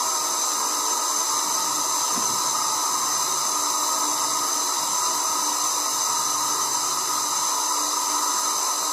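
Steady hiss of compressed air flowing at about 5 psi into a collapsed 300-gallon metal holding tank to reinflate it.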